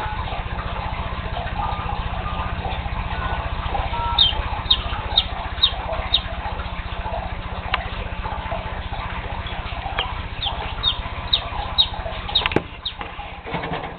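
Chicken chick peeping: two runs of about five short, high, falling peeps, roughly two a second, over a steady low hum that drops away near the end.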